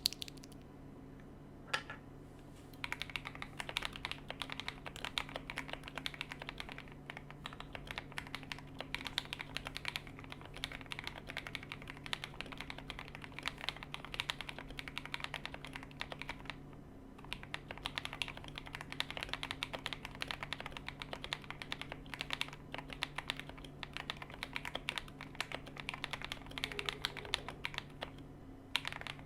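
Fast typing on a KBD67 Lite R3 custom mechanical keyboard with lubed KTT Rose linear switches and ASA-profile keycaps: a dense, continuous run of keystrokes. It starts a few seconds in, and there is a short pause a little past halfway and another near the end. A steady low hum runs underneath.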